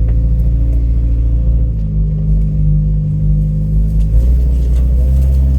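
Off-road vehicle's engine running at low speed on a rough trail. A low, steady rumble whose pitch shifts about two seconds in and again about four seconds in.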